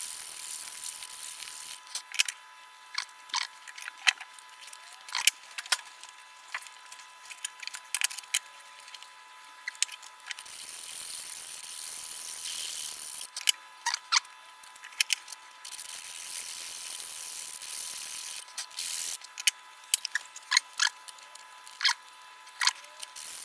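Sandpaper rubbing inside a narrow slot in a wooden block. The scratching comes in stretches, with a longer spell about halfway through, and is broken by frequent sharp wooden clicks and knocks as the block and strip are handled.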